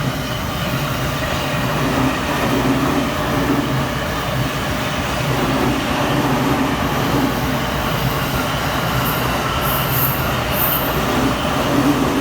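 Electric train running past at speed, a steady loud rumble of wheels on the rails that builds over the first couple of seconds. A few brief high-pitched squeals come about three quarters of the way through.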